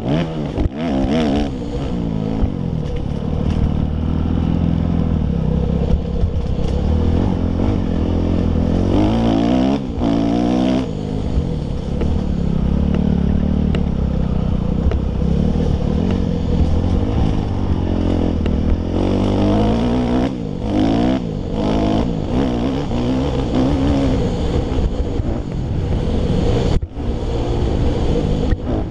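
2005 Kawasaki KX250F motocross bike's single-cylinder four-stroke engine revving hard while ridden on a dirt track, its pitch climbing and falling over and over with throttle and gear changes. There are brief throttle-offs, the sharpest near the end.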